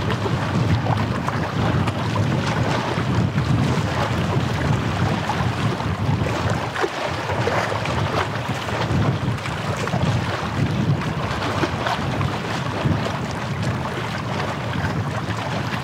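Wind buffeting the microphone in a steady low rumble, with waves washing at the shore beneath it.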